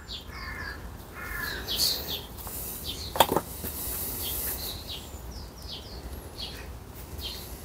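Birds calling: two short harsh calls in the first couple of seconds and scattered high chirps, with one sharp click a little after three seconds in.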